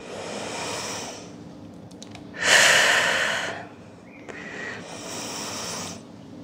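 A woman breathing deeply and audibly in and out, three breaths of rushing air, the loudest about two and a half seconds in. The breaths are paced with a slow yoga leg movement.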